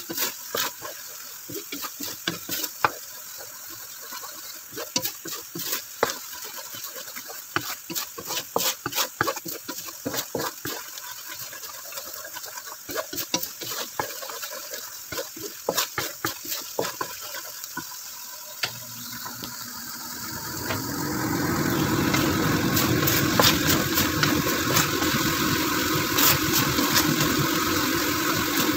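Coconut milk boiling in a wok, bubbles popping in a quick irregular crackle, with the odd scrape of a wooden spatula. About twenty seconds in, a louder steady rumbling noise, like a running motor, sets in and drowns it out.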